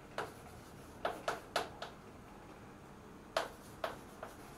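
Chalk tapping on a blackboard as words are written: short sharp clicks in uneven clusters, with a pause of over a second in the middle.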